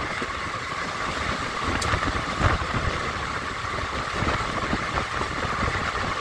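Passenger train running along the track, heard from on board: a steady rumble and noise of the moving coach, with a few low thumps.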